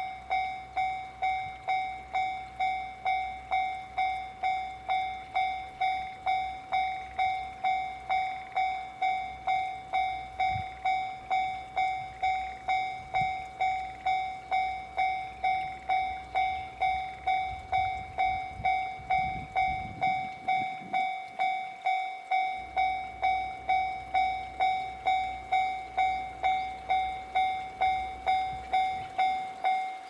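Japanese level-crossing warning bell ringing steadily at about one and a half strikes a second, signalling an approaching train.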